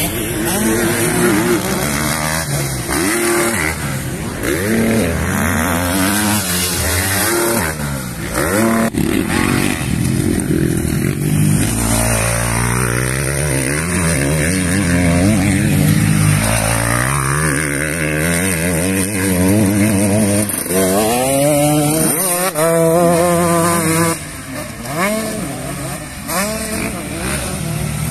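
Motocross dirt bike engines revving hard on the track, the pitch repeatedly climbing and dropping as the riders open and close the throttle and shift gears.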